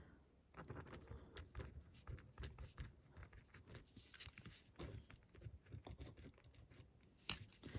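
Faint, scratchy strokes and small taps of a gel pen writing on paper, in a steady run of short marks.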